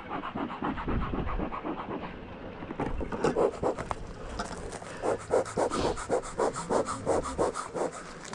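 Rapid rhythmic scraping and rubbing from a bee smoker being handled, about five strokes a second, starting about three seconds in and growing stronger in the second half.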